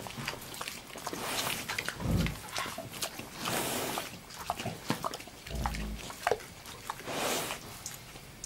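Wild boar rooting in loose, crumbly soil with its snout: breathy nasal huffs three times, two short low grunts, and many small clicks and crackles of clods being pushed aside.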